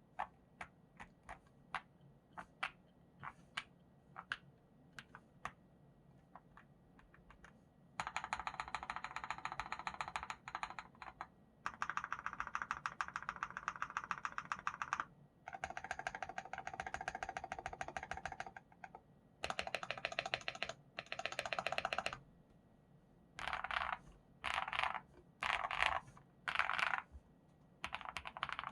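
Akko SPR75 spring-mount mechanical keyboard with Sarokeys Strawberry Wine switches, PBT keycaps and a polycarbonate plate being typed on. For the first several seconds it gives single keystrokes about two a second, then fast typing in runs of a few seconds with short pauses, breaking into short bursts near the end.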